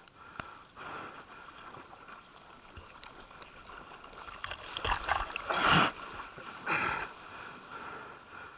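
Seawater sloshing and splashing around a surfboard, with a few louder splashes in the second half.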